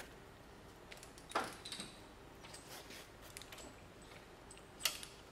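Metal clinks and ticks of a ratchet and loose bolts being handled while the cylinder head bolts come out of a V8. The sharpest clink, with a brief ring, comes about a second and a half in, another near the end, and there are light ticks in between.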